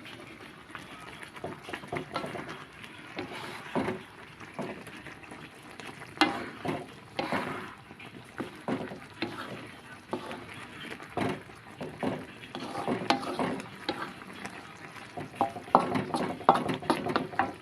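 A stir-fry being tossed in a wok: a spatula scraping and knocking irregularly against the pan while the food cooks in sauce.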